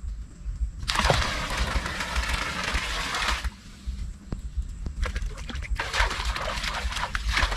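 Water splashing in a small swimming pool: a run of uneven splashes in the second half as feet kick the surface. Before that comes a steady rushing noise lasting about two and a half seconds.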